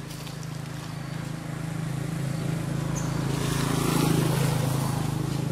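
A motor vehicle's engine passing, with a steady low hum. It grows louder to a peak about four seconds in, then eases off.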